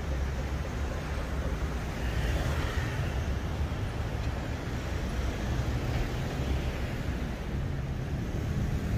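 Wind buffeting the microphone over a steady hiss of rain and street traffic outdoors, with a louder swell of noise about two to three seconds in.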